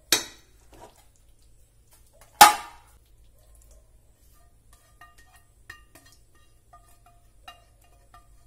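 Two sharp clanks of metal cookware, about two seconds apart, the second the loudest with a brief ring, as a nonstick pan of hot halwa is lifted and tipped into an aluminium baking tray. After that come faint light taps and scrapes of metal.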